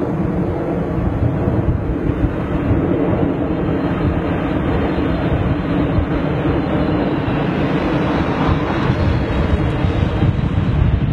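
Jet engines of a landing Boeing 747 freighter: a loud, steady noise with a deep rumble as the four-engined jet flares low over the runway.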